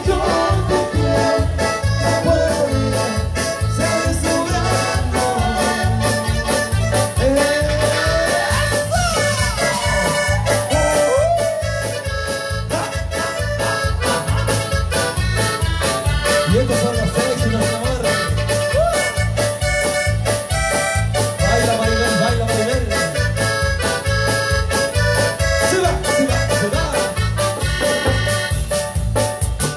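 Live cumbia band playing: an electronic keyboard carrying an accordion-sounding melody over drums with a steady beat.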